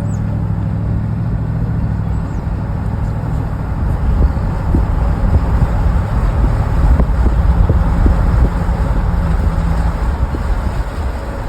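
Car engine humming steadily, heard from inside the moving car. From about four seconds in, a louder low rumble of road noise takes over.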